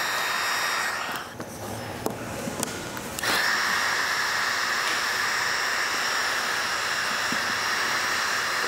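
Electric heat gun blowing hot air to soften vinyl wrap film so it tacks down over a curve. It runs with a steady hissing whine, drops away a little after a second in, and comes back on suddenly about three seconds in.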